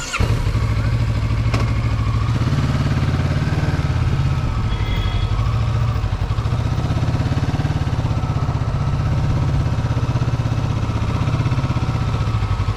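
Motorcycle engine idling steadily, close up, with an even low pulsing. It comes in suddenly at the start.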